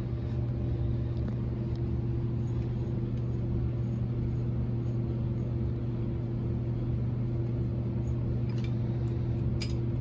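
Steady low machine hum at an even level, with a few faint clicks near the end.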